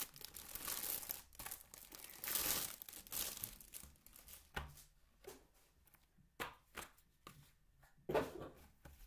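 Clear plastic packaging bag being torn open and crinkled, loudest in the first three seconds, followed by scattered light clicks and knocks as the contents are handled.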